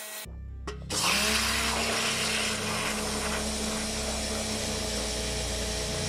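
Electric pressure washer starting up as its trigger is pulled, the motor's pitch rising briefly then running steady, with the water jet hissing and churning into a metal bucket of foaming liquid.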